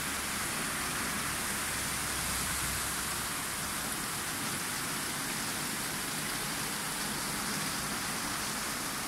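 Heavy rain falling steadily, an even, unbroken downpour.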